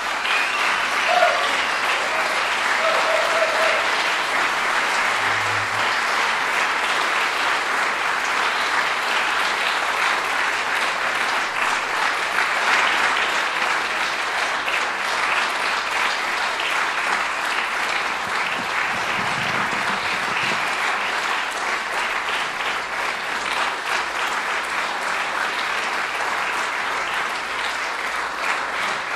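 Audience applauding: a long, steady round of applause.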